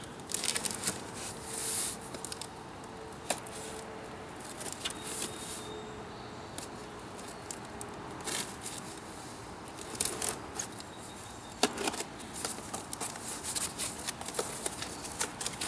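A cardboard shipping box being opened by hand: packing tape slit and torn, and cardboard flaps scraped and crinkled, in irregular rips, scratches and sharp clicks.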